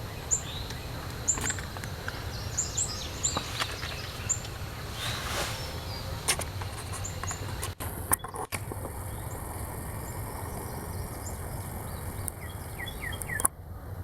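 Small birds chirping in many short, high calls over a low, steady rumble, with a few scattered clicks. The sound cuts out briefly twice near the middle and again near the end.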